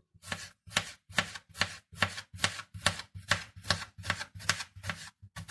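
A kitchen knife slicing a cucumber into thin rounds on a plastic cutting board, each cut ending in a knock of the blade on the board, in a steady rhythm of about two to three cuts a second.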